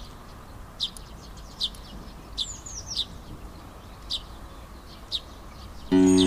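Small songbird calling: short, sharp downward chirps about once a second, with a few slurred falling notes around two and a half seconds in. Loud music cuts in suddenly near the end.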